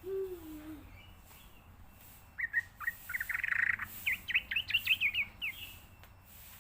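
Yellow-vented bulbul (trucukan) song: a quick string of bubbly chirping notes, climbing in pitch over about three seconds. A brief low falling note sounds at the very start.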